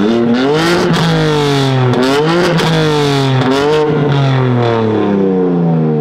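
Straight-six car engine free-revving with its exhaust valves open, very loud: about three revs, the pitch climbing and dropping each time, then easing slowly back down toward idle.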